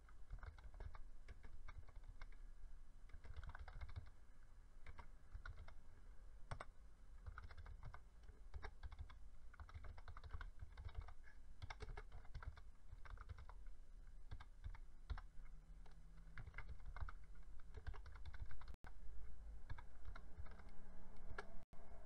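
Typing on a computer keyboard: a fast, uneven run of key clicks as a long command is entered, over a low background hum.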